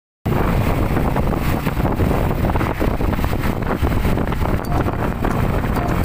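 Wind buffeting the microphone of a moving open-sided vehicle, over engine and road noise. It starts abruptly a moment in, after a brief silence.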